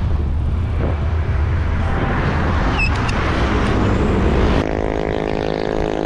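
Wind rumbling on the microphone and road noise from motor traffic during a bike ride. About four and a half seconds in, the sound switches abruptly to a steady, even-pitched drone like an engine running.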